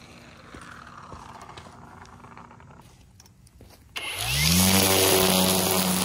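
Low background sound, then about four seconds in a cordless electric string trimmer starts up. Its motor whine rises quickly to a steady pitch, and the spinning line hisses as it cuts grass along the edge of the sidewalk.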